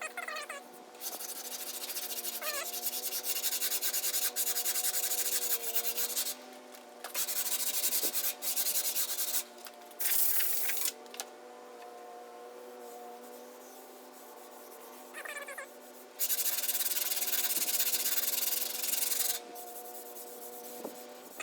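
Body filler on a bus bumper being sanded smooth, in several long bursts of scraping that start and stop abruptly, with pauses in between.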